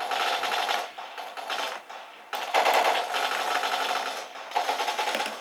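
Rapid, dense clacking of an Attack Shark K75 mechanical keyboard as its keys are pressed in quick succession. The clatter drops away briefly about a second in and again around two seconds in, then picks up.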